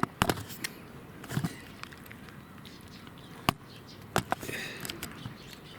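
Cat eating from a food bowl: a handful of sharp clicks and taps, unevenly spaced, with the loudest about three and a half seconds in and again just after four seconds.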